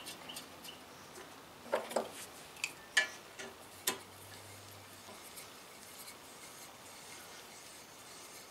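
Adjustable wrench turning a thread tap in a cast-iron small block Chevy exhaust manifold bolt hole, the tap now turning easily: light metallic ticks and rubbing, with a few sharper clicks about two, three and four seconds in.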